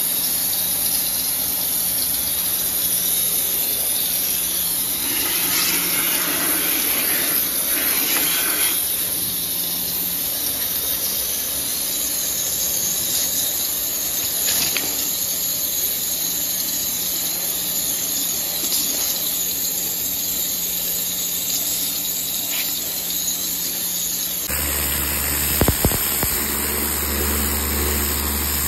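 Kärcher high-pressure washer running, its motor humming under a steady hiss of the water jet. About 24 seconds in the sound changes abruptly and a deeper hum joins in.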